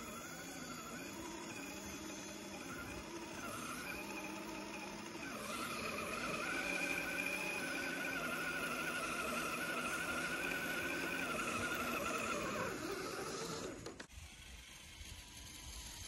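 Small electric winch on an RC crawler whining as it reels in its line, dragging a stuck scale truck through deep snow; the whine wavers in pitch, grows louder about five seconds in, and cuts off abruptly about two seconds before the end.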